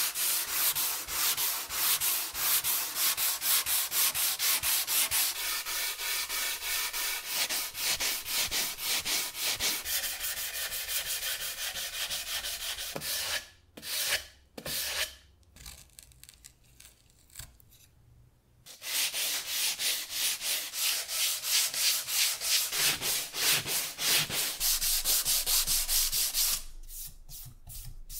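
Hand sanding block with sandpaper rubbed back and forth along a weathered wooden rail, in fast, even strokes of about three a second. The strokes stop for a few seconds midway, then start again and tail off near the end.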